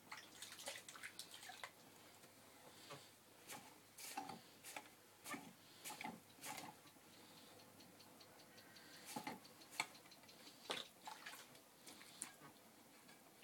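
Wet hands working soft clay on a spinning potter's wheel, heard as faint, irregular clicks and small wet slaps as the clay wall of the pot is pressed and shaped.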